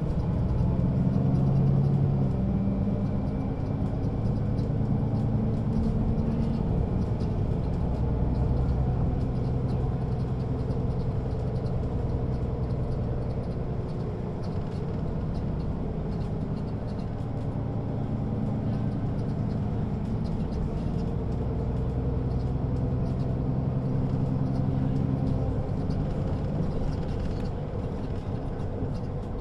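Mercedes-Benz Citaro G (O 530 G) articulated bus with its ZF automatic gearbox running: the diesel engine hum rises in pitch, drops away, holds steady, then rises again and falls near the end, as the bus pulls away, changes gear and eases off.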